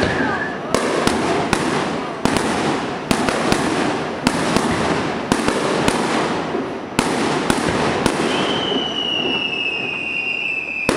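Fireworks display: a rapid run of sharp bangs from bursting shells, with crackling between them. About eight seconds in, a long, high whistle starts and falls slightly in pitch.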